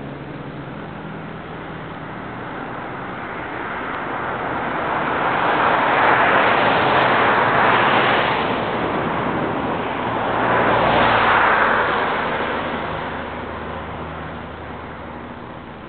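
Road traffic: two vehicles pass one after the other, their tyre and road noise swelling, peaking and fading away. The first peaks a little before halfway and the second a few seconds later.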